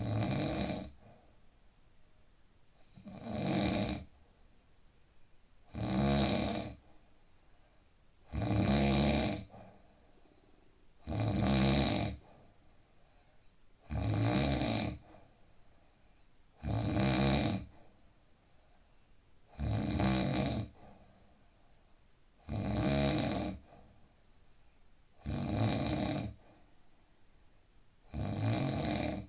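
A man snoring in a steady rhythm, one rattling snore about every three seconds, each lasting about a second, with quiet breathing between.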